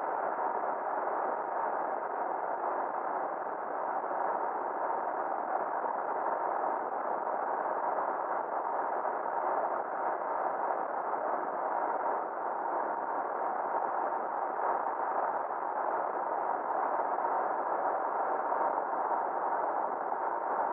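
Steady, muffled road noise of a pickup truck driving at speed, with a faint constant hum and no changes.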